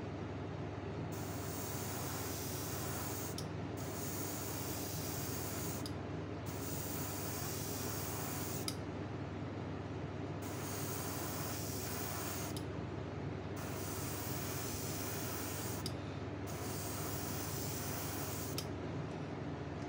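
Airbrush spraying paint in six bursts of about two seconds each, with short pauses between, over a steady low hum.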